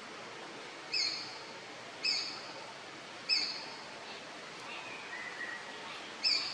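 A bird calling: four short, high notes held at one pitch, about a second apart with a longer pause before the last, and a softer falling note in between.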